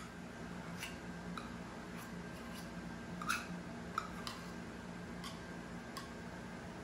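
A metal spoon clicking and scraping against a metal measuring cup as lard is spooned and packed into it, giving irregular light ticks, one a little louder about three seconds in. A faint steady hum runs underneath.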